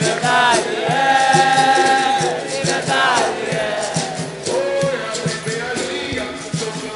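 Capoeira roda music: sung, chant-like call-and-response singing with a long held note early on, over the roda's percussion (berimbau, atabaque drum) and a steady shaker rhythm.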